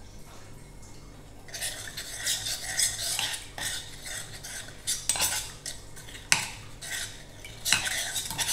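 Metal spoon stirring a sauce in a clay pot, scraping and clinking against the pot. The scraping starts about a second and a half in, with one sharper clink near the end.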